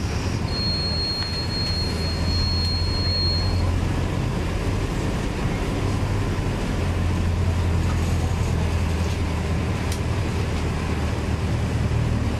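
City bus's diesel engine running under way, heard from inside the bus: a steady low drone with road noise. A thin, high steady tone sounds for about three seconds near the start.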